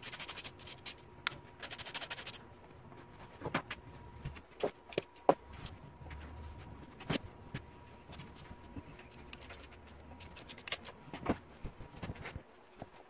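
Hand tools and metal parts handled while taking the front wheel off a motocross bike: two short runs of rapid clicking near the start, then scattered clinks and knocks.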